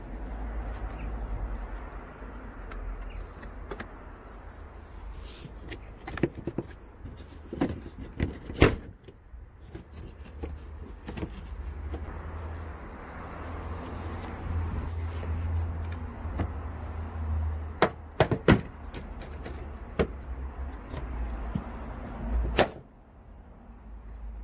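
Scattered sharp plastic clicks and knocks as the front bumper of a 2014 Vauxhall Astra J and its clips are worked loose from the headlight and wing, over a low steady rumble on the microphone. The clicks come in small clusters, several about a third of the way in and a tight group just past halfway.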